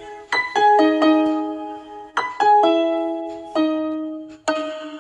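Background music: a keyboard melody of single piano-like notes, each struck and left to ring and fade, played in small groups of two or three.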